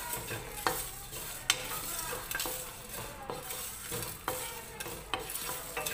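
Wooden spatula stirring whole spices roasting in a nonstick pan: seeds scraping and rattling across the pan surface, with several sharp taps of the spatula.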